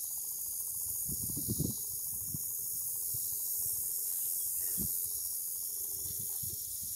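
Outdoor ambience: a steady high-pitched hiss with irregular low rumbles and bumps on the microphone.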